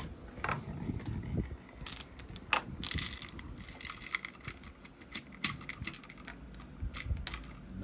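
Dry cat kibble shaken out of a plastic bottle, the pellets rattling inside it and clattering onto a hard desktop in a string of small clicks, in two busy runs with a lull between.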